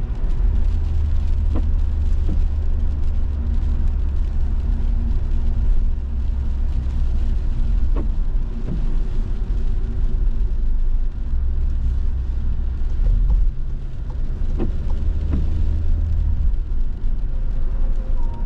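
Steady low rumble of road noise heard from inside a moving car's cabin, with tyres running on a wet road, and a few faint ticks scattered through it.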